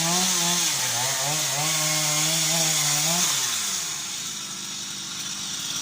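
Two-stroke chainsaw running at high revs, its pitch wavering under the throttle, then the revs fall away about three seconds in as it drops back toward idle.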